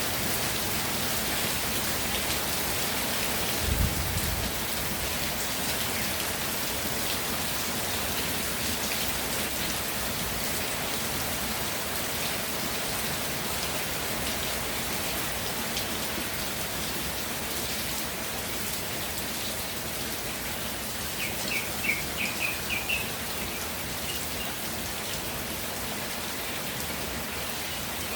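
Steady rainfall pattering down. There is a brief low thump about four seconds in, and a quick run of short high chirps about three quarters of the way through.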